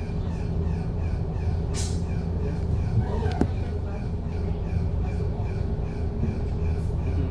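MAN Lion's City double-decker bus running, heard from inside: a steady low engine hum with a fast high chirp repeating about three times a second, and a couple of short clicks.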